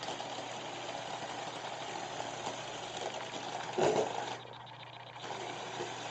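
Electric motors and gearing of a remote-controlled LEGO model bulldozer running in spurts: a steady grinding whir that starts suddenly, gets loudest just before it cuts out about four seconds in, then starts again near the end.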